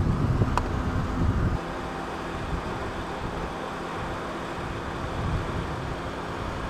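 Wind buffeting the microphone outdoors, with heavy gusts for the first second and a half, then settling into a steadier hiss with a faint low hum underneath.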